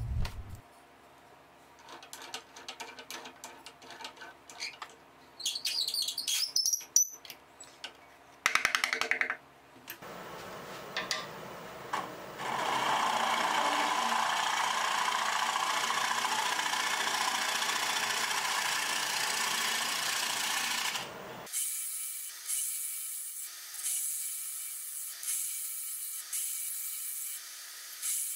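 Clicks and knocks for the first ten seconds or so, then a bowl gouge cutting a mahogany lid spinning on a wood lathe: a steady cut lasting about nine seconds, then lighter scraping cuts in strokes about once a second.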